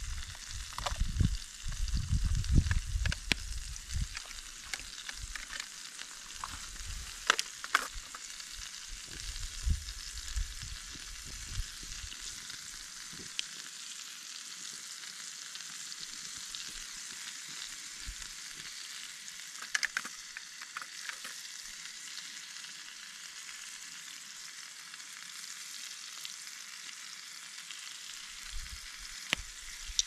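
Strip steak sizzling steadily in butter in a carbon steel cowboy pan on a grate over campfire coals. There are knocks and rattles of handling in the first few seconds, and a few sharp clicks later on.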